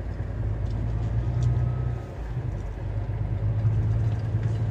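Heavy truck's diesel engine running at low speed as the truck is manoeuvred, a steady low hum that dips briefly about two seconds in.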